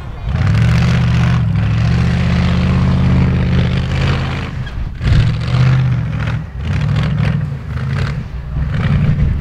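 Engine of a caged Jeep-style off-road trial vehicle revving hard under load as it climbs a rocky slope. The pitch rises steadily for a couple of seconds, drops off sharply about halfway through, then surges up again in several short bursts.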